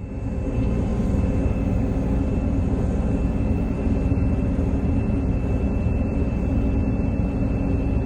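Engine running steadily: a loud, even low rumble with a steady high whine over it, starting abruptly.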